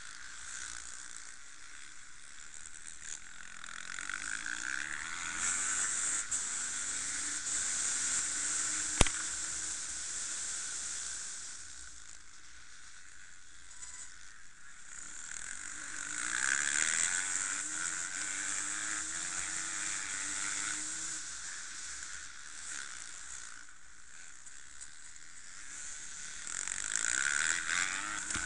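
Enduro dirt bike engine heard from on board, revving up and easing off in waves as it accelerates along the track, under heavy wind hiss on the microphone. A single sharp click about nine seconds in.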